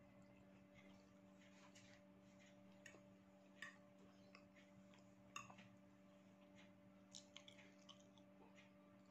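Near silence with faint eating sounds: scattered soft clicks as a metal fork works noodles on a plate, over a low steady hum.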